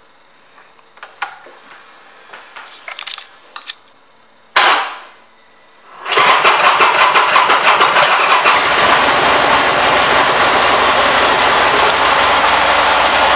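Buell Ulysses XB12XT's air-cooled V-twin being started: a few small clicks, then a brief loud burst about four and a half seconds in. About six seconds in the engine catches and runs steadily.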